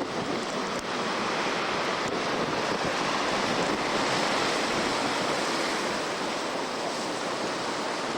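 Heavy storm surf from a nor'easter, a continuous dense rush of breaking waves mixed with strong wind, swelling slightly in the middle.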